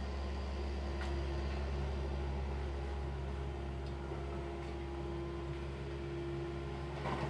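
Diesel engine of heavy demolition machinery running steadily with a deep constant hum and a steady higher tone over it. There are light knocks of debris about a second in, and a louder one near the end.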